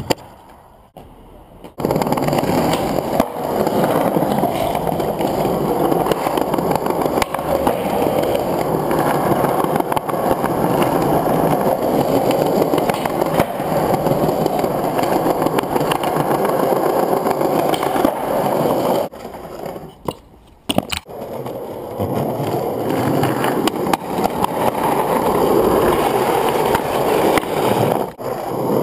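Skateboard wheels rolling on hard, smooth ground, broken by sharp clacks of the board popping and landing. The rolling stops for a few seconds about two-thirds of the way through, then starts again.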